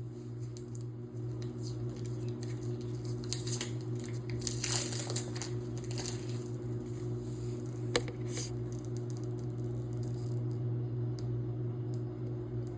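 A steady low electrical hum, with rustling and crinkling handling noises, loudest about five seconds in, and a single sharp click about eight seconds in.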